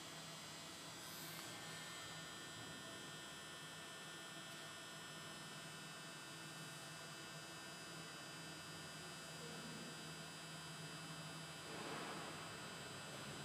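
Faint steady machine hum, with a brief soft rustle about a second in and another near the end.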